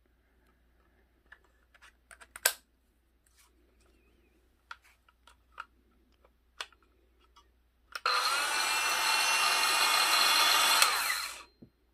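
Makita SH02Z 3-3/8-inch cordless circular saw run with no load: the motor and blade start abruptly, spin steadily for about three seconds, then wind down as the trigger is released. Before that come a few scattered clicks and knocks from the saw being handled.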